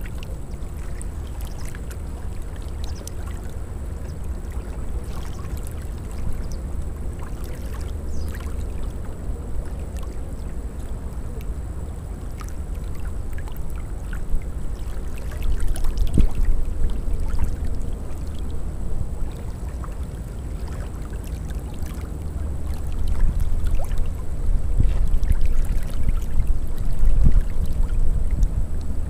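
Small waves lapping and splashing against the water's edge, with a steady low wind rumble on the microphone; the splashing grows louder about halfway through and again near the end.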